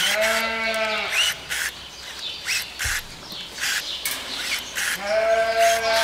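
Sheep bleating: one long bleat at the start and another about five seconds in, with short sharp clicks in between.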